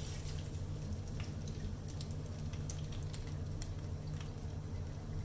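Minced garlic frying gently in oil in a frying pan, with scattered small pops and crackles, over a steady low hum.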